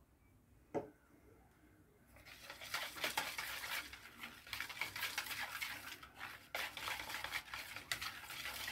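Hand-held coil whisk stirring thin crepe batter in a plastic bowl: a continuous wet swishing and scraping with small rattles that starts about two seconds in. A single short knock comes just before, about a second in.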